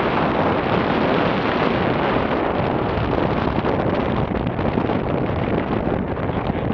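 Wind buffeting the microphone in parasail flight: a steady rushing noise that eases slightly near the end.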